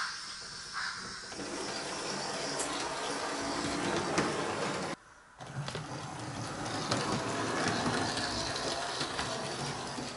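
A Train Tech analogue sound module riding in a wagon plays harsh locomotive sound effects through its small speaker, set off by the model locomotive's movement. The sound cuts out abruptly for about half a second halfway through, then starts again.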